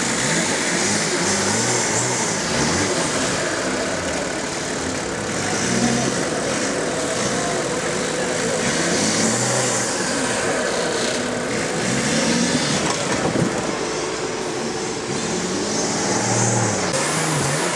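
Engine of a caged off-road 4x4 working under load, revving up and falling back again and again as it crawls up a steep dirt bank.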